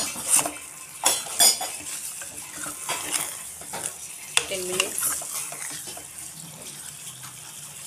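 A spatula stirring mutton pieces in masala in a metal pressure cooker pot over a high flame, knocking and scraping against the pot several times in the first half, over a steady sizzle of frying. This is the high-heat browning (bhuna) stage for the meat.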